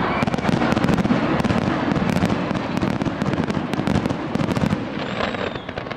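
Fireworks display: a dense, continuous run of aerial shell bursts with many sharp cracks over a low rumble, thinning out about five seconds in.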